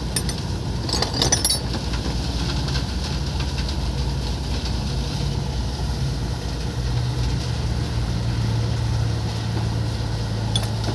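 Steady low drone of a heavy vehicle's engine idling, growing a little louder past the middle. Within the first second and a half come a few metallic clinks of wrenches and sockets being picked from a tool case.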